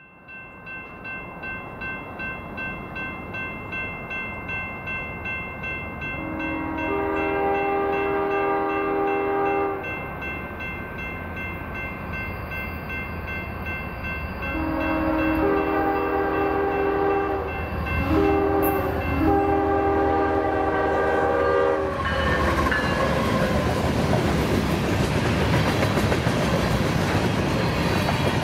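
A bell ringing steadily while the lead locomotive, a GE Evolution-series (GEVO), sounds its chime horn in the grade-crossing pattern: two long blasts, a short one and a final long one. The horn cuts off about three quarters of the way through as the train rolls past with a loud rush of engine and wheel noise.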